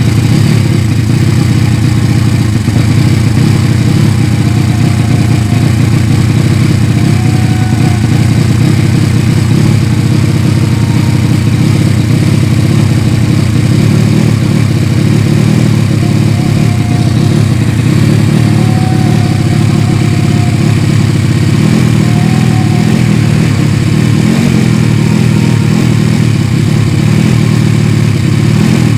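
Yamaha Vega ZR's four-stroke single, swapped to a Mio cylinder of 200cc, running steadily just after being kick-started. It is being test-run to check that the engine is still sound after long storage. About 22 seconds in, its low tone changes slightly.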